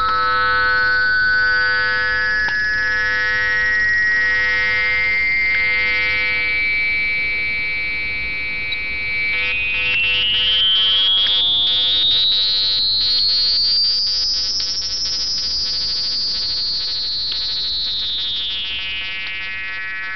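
Digital wavefolder running on an Arduino with a Codec Shield, folding a 100 Hz ramp wave into a steady tone thick with overtones. A bright overtone glides up and then back down as the folding changes, and a few short clicks come from the digital function generator switching ranges.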